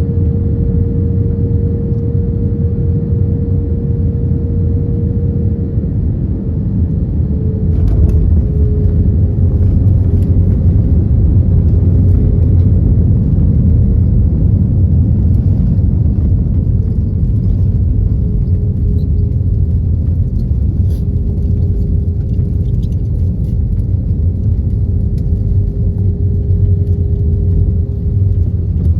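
Airbus A321 cabin noise during landing: a loud steady low rumble with an engine tone held above it. About eight seconds in a jolt comes through and the rumble grows louder, with light rattling for the rest.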